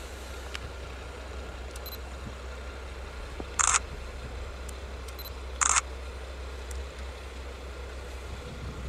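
Hymo 295-series diesel railcar standing with its engine idling as a low steady rumble, broken by two short, loud hisses of compressed air about two seconds apart.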